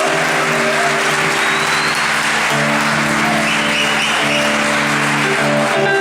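Live band music with held chords, under steady audience applause and cheering.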